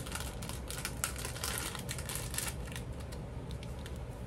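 Crinkling and rustling of craft supplies being rummaged through by hand. The rustling is dense for the first two and a half seconds, then thins out.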